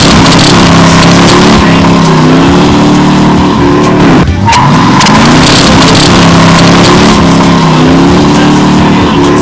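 1966 Chevy's engine held at high revs during a burnout, with a steady tyre squeal from the spinning rear wheel. About four seconds in, the engine note briefly drops and then climbs back up.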